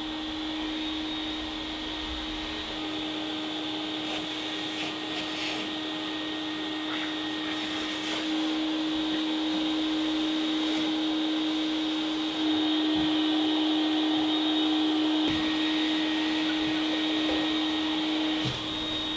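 A vacuum cleaner with a long hose running steadily: a constant hum with a high whine over it, getting louder in the second half and easing off just before the end.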